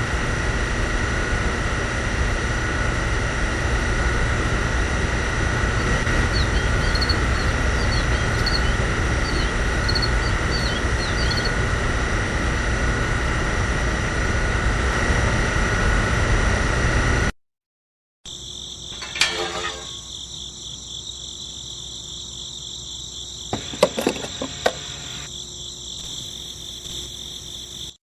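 Small DC motor pump of a homemade toy fuel dispenser running with a steady high whirring buzz while it fills a miniature tanker through a hose nozzle. After a cut the sound drops to a quieter steady high whine, broken by a few sharp clicks.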